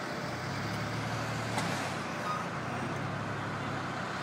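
Steady motor vehicle noise: an engine's low hum under an even rush of road noise.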